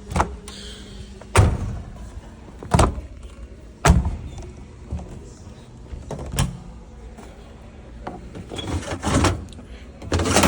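Washing machine and dryer doors being opened and shut by hand: a series of sharp thunks and clacks, the loudest in the first four seconds, with a quicker cluster near the end.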